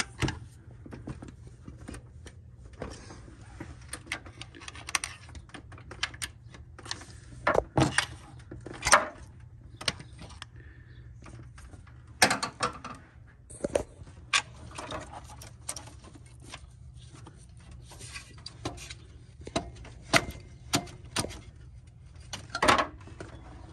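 Irregular metallic clinks and knocks of hand tools prying a Chevy Silverado alternator loose from its mounting bracket, ending with the alternator being worked free by hand. A handful of louder clanks stand out among the lighter clicks.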